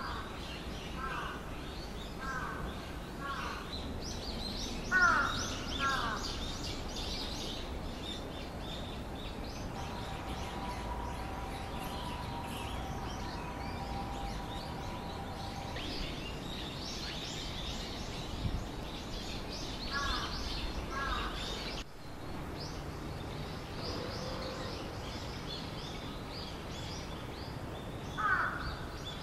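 Crows cawing in short runs of harsh, falling calls, several times over, while small birds chirp high and continuously in the trees.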